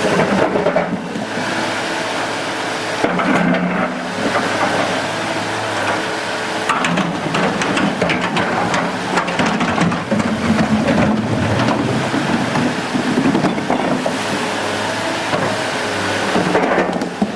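Excavator's diesel engine running steadily, with a wash of flowing water and scattered knocks and clatter.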